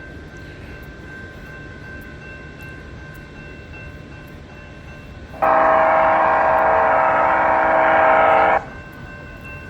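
Loud electronic horn at a railroad crossing, one long blast of several steady pitches sounded together, starting about halfway through and cutting off sharply after about three seconds. Before it, faint steady electronic tones of the crossing warning.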